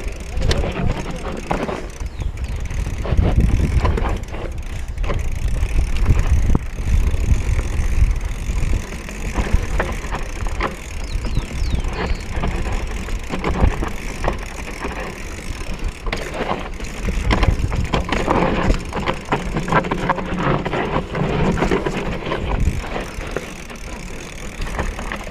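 Mountain bike riding over a dirt trail: a steady rumble from the tyres, with frequent knocks and rattles from the bike over bumps.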